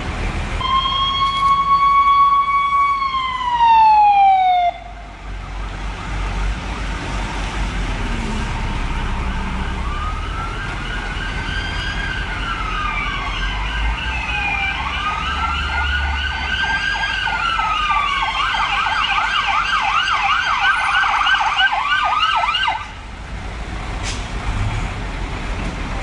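Emergency vehicle siren. A held tone slides down in pitch and cuts off about five seconds in. From about ten seconds there is a slow rising-and-falling wail, which switches to a fast yelp near eighteen seconds and stops abruptly near twenty-three seconds. Low road traffic rumble runs underneath.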